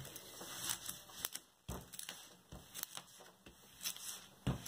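Hands sweeping over a diamond painting canvas under its clear plastic film, with soft rustling, crinkling and small clicks. A short knock near the end.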